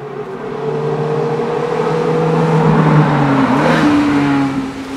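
Ferrari rally car's engine coming up the stage at speed, a steady note growing louder as it approaches. Its pitch drops around three and a half seconds in as the car passes.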